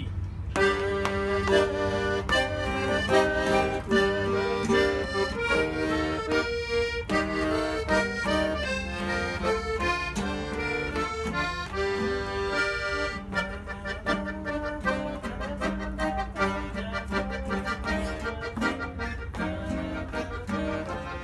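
Accordion and Kazakh dombra playing a tune together, the accordion carrying the melody and chords in front while the two-string dombra is plucked along with it.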